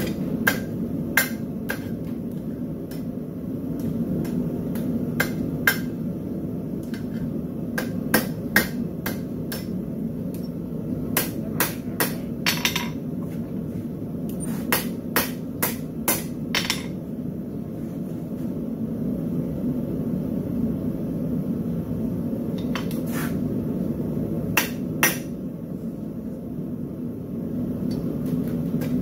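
Hammer blows on hot steel on an anvil while hoof-pick stock is forged, in irregular clusters of sharp strikes with a pause of several seconds past the middle. Under them runs a steady low background noise.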